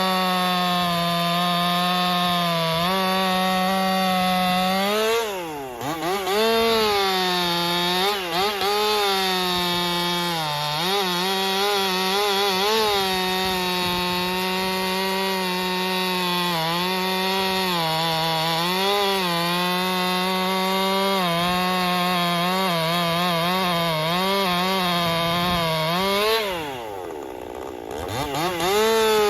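Ported Stihl MS261 M-Tronic two-stroke chainsaw with a 25-inch bar running near full throttle in a cut, its revs sagging and recovering under load. The revs drop sharply and climb back about five seconds in and again near the end.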